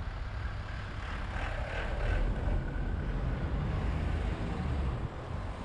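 Motor traffic passing on the road alongside, swelling about a second and a half in, over a steady low rumble.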